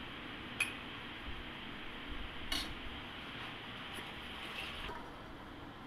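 A metal ladle clinks lightly against a stainless steel soup pot, twice and sharply and then a few times faintly. Under it runs a steady hiss that drops away about five seconds in.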